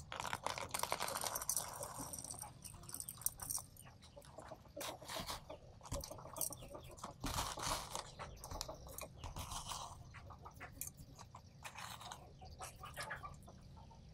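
Gritty potting mix of burnt rice husk and coarse sand poured from a plastic tub into a small terracotta pot, then pushed in by hand: a dense dry rattle of grains over the first few seconds, then scattered crunches and clicks.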